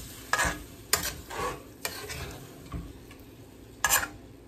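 Metal spoon stirring chicken wings in an aluminium wok, scraping and knocking against the pan about six times, with the loudest knock near the end. A steady sizzle of the hot pan and liquid runs underneath.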